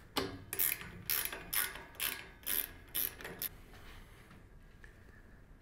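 A nylon zip tie being pulled tight in a series of short ratcheting zips, about two a second, which stop about three and a half seconds in.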